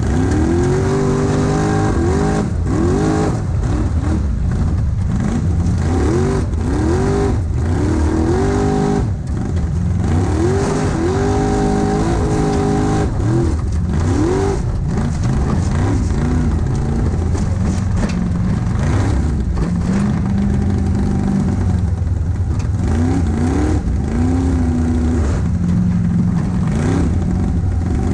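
Formula Offroad buggy's engine heard from the cockpit, revved hard and falling back again and again, about once a second, as the car climbs the dirt track. In the second half the revs run steadier, with only a few shorter rises.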